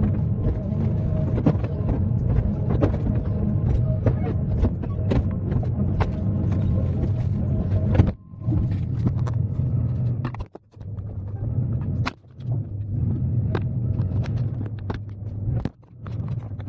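Excavator diesel engine running, with frequent knocks and clanks from the working machine. The sound cuts off abruptly several times, about eight, ten and a half, twelve and sixteen seconds in.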